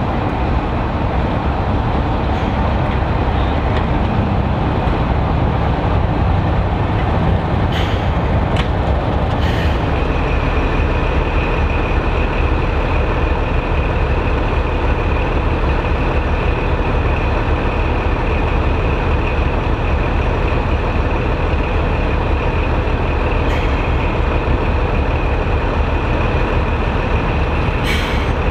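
Diesel locomotive engine running at low speed as it moves slowly through the station. From about a third of the way in a steady high-pitched whine joins the engine, and a few sharp metallic clanks come around the middle and again near the end.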